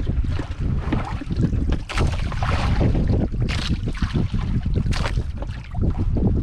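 Wind buffeting the microphone, with water slapping and splashing against a small boat's hull a few times.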